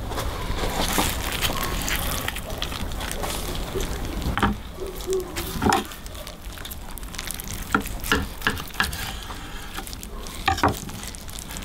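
Knife slicing through the crusty bark of smoked beef ribs on a wooden cutting board: crackly crunching with a string of sharp clicks and taps.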